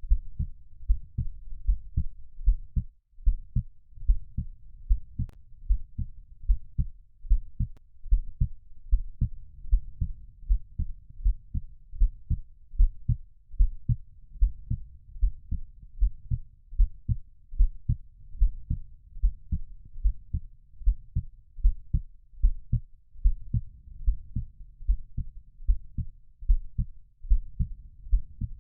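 Heartbeat sound: a steady, even rhythm of low, dull thumps with a faint low rumble between the beats.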